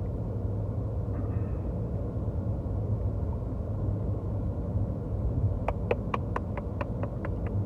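Steady low rumble of a car heard from inside the cabin. Near the end comes a quick run of about a dozen sharp ticks in under two seconds.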